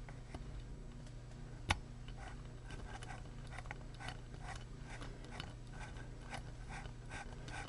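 Screw being driven with a screwdriver to clamp an STA540 output chip to its heat sink: a run of small irregular clicks and ticks, with one sharp click nearly two seconds in. A steady low hum underneath.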